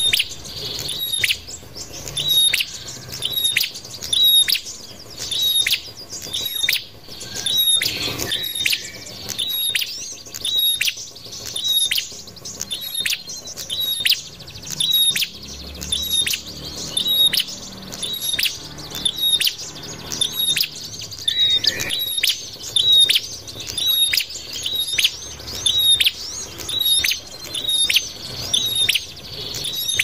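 Prenjak (tailorbird/prinia) calls played as a bird-luring recording: one short, sharp, high call repeated over and over at a steady pace, with fainter chirps behind it.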